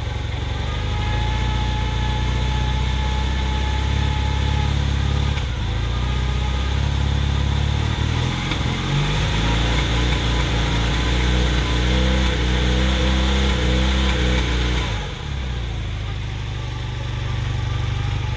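1981 Honda CM400T's air-cooled parallel-twin engine running, a little faster for most of the stretch, then settling back to idle near the end. It carries the slight misfire the owner reports after a top-end rebuild.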